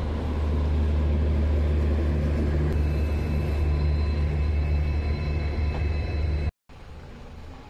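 Train at a station platform: a steady low rumble with a slow, regular throb. It cuts off abruptly near the end.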